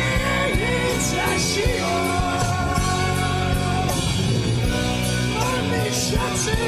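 Rock band playing live: electric guitar with bending notes over a full band, with cymbal crashes.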